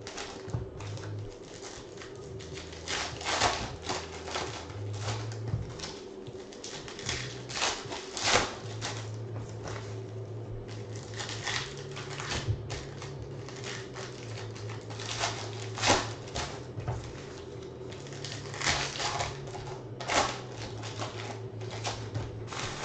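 Foil trading-card pack wrappers crinkling and tearing as packs are ripped open by hand, in irregular sharp crackles, with cards being handled.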